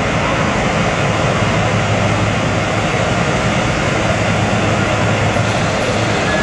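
Steady, loud engine drone with a constant low hum.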